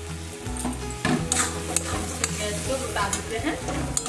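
A metal spatula stirring and scraping thick, cooked-down tomato chutney in a metal kadai, with a soft sizzle from the pan. There is a run of irregular scraping strokes from about a second in. The chutney is finished, and cardamom powder is being stirred through it.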